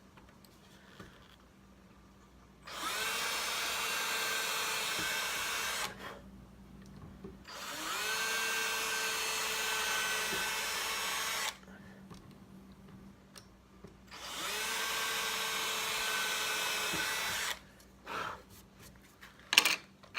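Power drill with a 1/16-inch bit drilling pilot holes through a hinge jig into a wooden cabinet door. There are three separate runs, each spinning up with a rising whine and then holding steady for about three seconds. A few light clicks follow near the end.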